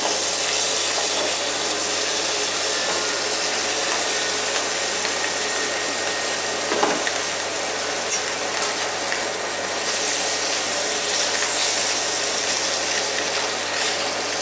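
Scallops and melting butter sizzling in a hot steel frying pan over a gas flame: a steady, dense crackle, the scallops searing on their second side.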